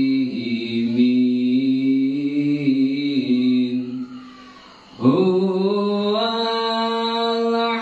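Man chanting sholawat pujian, Islamic devotional praise sung in Arabic, in long held notes with slow ornamented turns. He breaks off for breath about four seconds in and comes back a second later on a new sustained note.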